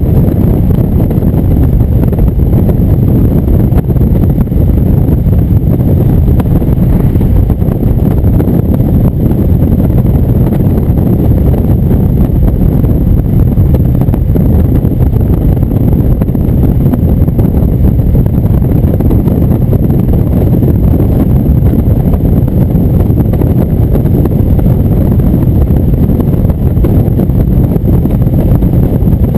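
Indian cruiser motorcycle running at a steady highway cruising speed, its engine and road noise mixed into a heavy, unbroken rumble of wind buffeting the microphone.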